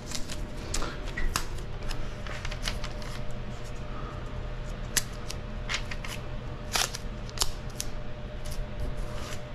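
Masking tape being pulled off the roll and pressed down as a border, with irregular crackles and sharp snapping clicks.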